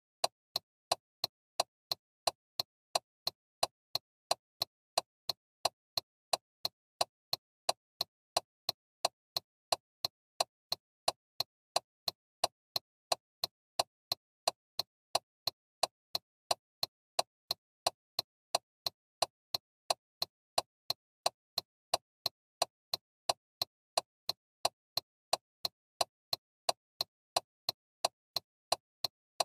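Car turn signal clicking in a steady, even rhythm of about two clicks a second.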